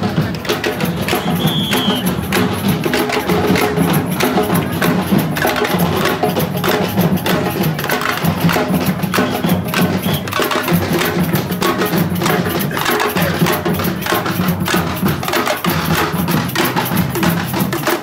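A parade drum band playing: rapid, continuous drum and percussion beats with no pause.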